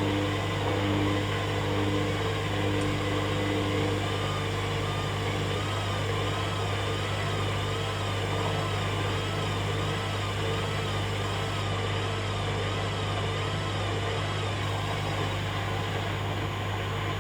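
Hoover Dynamic Next washing machine running a rinse-and-spin programme: a steady low hum, with a fainter whine that wavers up and down in pitch through the middle.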